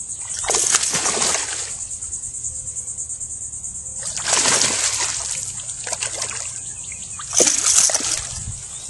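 A hooked largemouth bass splashing and thrashing at the water's surface as it is played in, in three bursts of about a second each.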